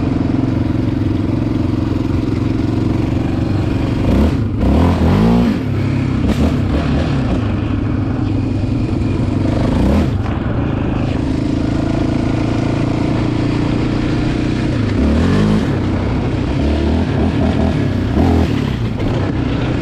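Yamaha Raptor 700R ATV's single-cylinder four-stroke engine running hard on a trail, revving up and dropping back several times as the throttle is worked.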